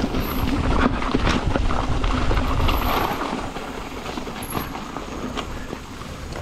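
Yeti SB150 mountain bike riding a dirt trail: tyres rumbling over the ground, with sharp clicks and rattles from the bike. It is louder for the first three seconds or so, then eases off.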